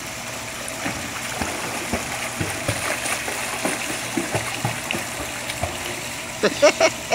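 Pool water splashing and sloshing as a child swims across a swimming pool, over a steady wash of running water, with a short run of louder, choppy sounds near the end.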